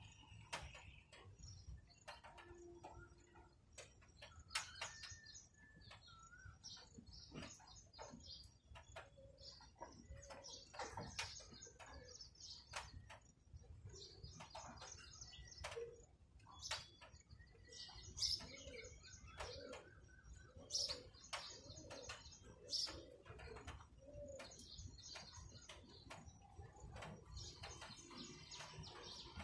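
Faint outdoor birdsong: small birds chirping throughout, with a run of low, repeated hooting calls about two a second in the second half.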